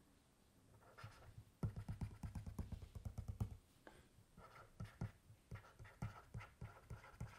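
Faint stylus taps and scrapes on a tablet screen, first a quick run of taps about a second and a half in as a dotted line is drawn, then scattered short strokes of handwriting.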